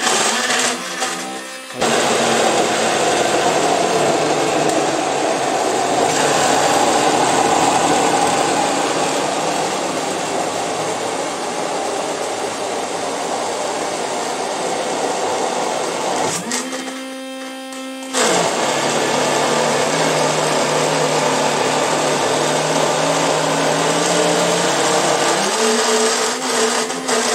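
Atomberg MG1 BLDC mixer grinder running, grinding jackfruit into a thick paste in its steel jar: one long run of about fourteen seconds, a pause of under two seconds, then a second run of about seven seconds.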